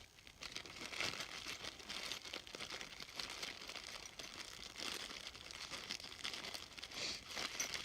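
Packaging crinkling and rustling in irregular crackles as small rotary-tool accessories are handled and unwrapped.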